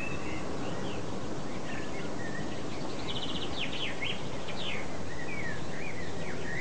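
Several wild birds chirping and calling in short, sliding notes, with a quick trill about three seconds in, over a steady background hiss.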